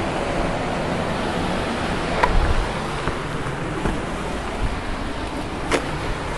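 Steady rush of the Shenandoah River's water running high in flood. A couple of sharp knocks from the camera being handled, about two seconds in and again near the end.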